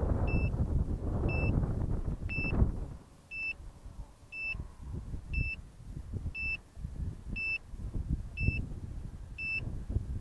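A short, high electronic beep repeating about once a second, over a low rushing noise that is loud at first and drops off sharply about two and a half seconds in, then goes on in weaker gusts.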